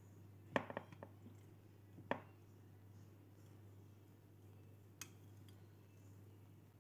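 Light clinks and knocks of kitchen handling over a glass baking dish while bacon is wrapped around raw pork tenderloin: a quick cluster of clicks about half a second in, one near two seconds and a single sharp tick about five seconds in, over a steady low hum.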